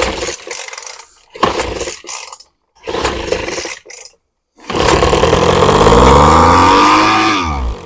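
Poulan Pro leaf blower's two-stroke engine pulled over three times on the recoil starter, then firing on fuel sprayed into the intake and running for about three seconds before its pitch falls away and it dies. That it fires shows the engine has spark and compression.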